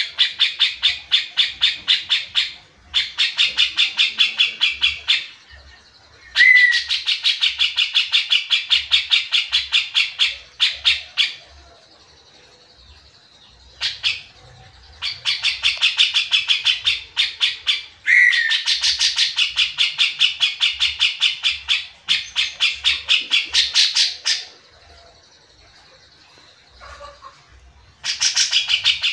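Grey-cheeked bulbul (cucak jenggot) singing in long runs of fast, repeated chattering notes. Each run lasts two to four seconds, with short pauses between runs and one longer pause near the end.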